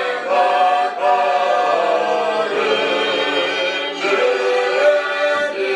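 A choir singing unaccompanied, several voices holding long notes in harmony.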